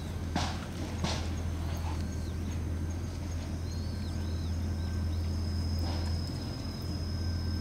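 Shiba Inu puppies' paws scuffing and ticking on gravel, with a couple of sharp ticks about half a second and a second in, over a steady low hum. Faint high chirps come and go near the middle.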